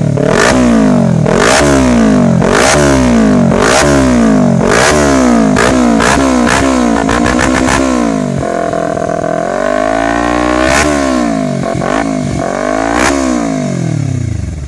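Kawasaki Ninja 300's parallel-twin engine revved through a Remus Okami aftermarket exhaust. Quick throttle blips come about once a second, each climbing and dropping back. About two-thirds of the way through there is a slower, longer rev, then two more blips.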